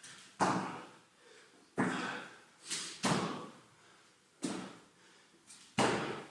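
A man breathing hard from exertion: forceful exhaled puffs of breath, about one a second, each starting sharply and trailing off.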